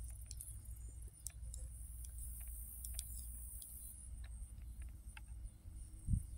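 Knitting needles clicking together irregularly, about two light clicks a second, as stitches are worked, over a steady low rumble. One low thump about six seconds in.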